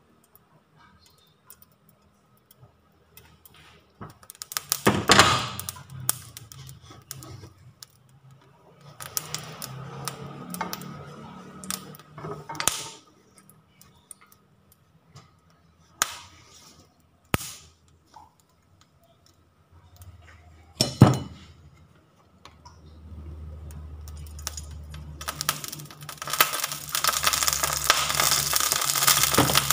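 Glass pan lid and metal spatula clinking and knocking against a frying pan as a soufflé pancake is uncovered and turned, with two louder knocks. Near the end a loud, steady sizzle starts as a little water goes into the hot oiled pan to make steam.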